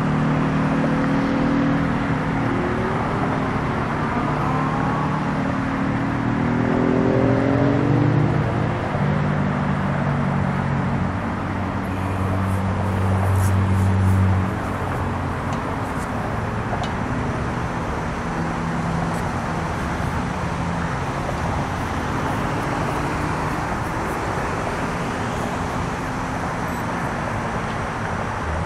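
Engine and traffic noise: a heavy engine drones with shifting pitch, swelling twice before dropping away suddenly about halfway through, over a steady outdoor roadway hum.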